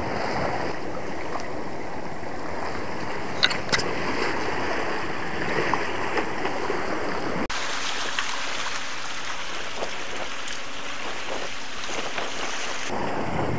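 Steady rush of seawater washing and splashing against shore rocks, mixed with wind on the microphone. The low rumble drops out suddenly about halfway through and returns near the end.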